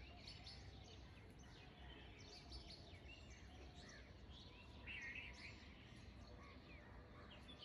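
Near silence with faint bird chirps scattered in the background, a few more about five seconds in.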